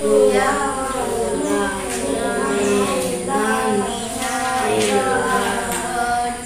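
A voice singing an Indonesian song, holding the word 'kreatif', then starting the line 'bangun dan bukalah matamu' (wake up and open your eyes) near the end.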